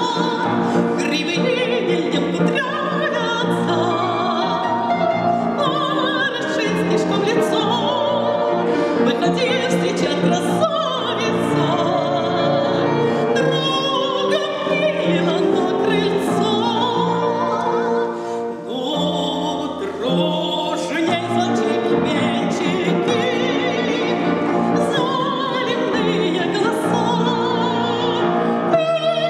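A woman singing in a classical operatic style with piano accompaniment.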